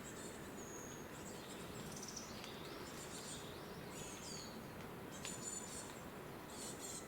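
Faint, high-pitched bird chirps and calls, short and scattered, over a steady hiss of outdoor background noise.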